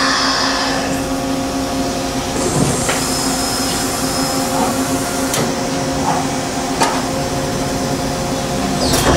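Makino MC-86 horizontal machining center running through a pallet-change cycle: a steady machine hum with several sharp clicks and knocks. A higher hiss drops away about a second in and comes back near the end.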